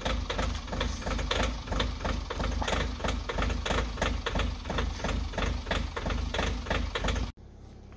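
Mahindra Thar's diesel engine idling just after a cold start in deep cold, with a quick, regular knocking from inside the engine that should settle once it warms. It cuts off suddenly near the end.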